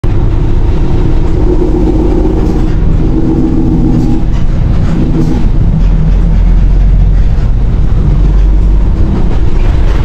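Steady, loud low rumble of a vehicle in motion, its engine drone holding a few low pitches.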